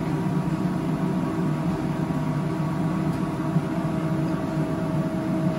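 Steady machine drone with several faint steady tones humming through it: commercial kitchen equipment running.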